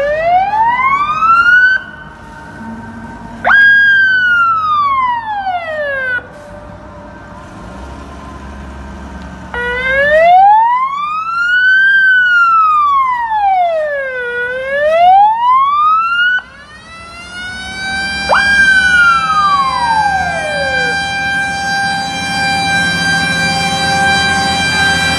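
Fire engine siren wailing in slow rising and falling sweeps, broken off several times. Near the end it settles into a steady high tone as the truck draws close.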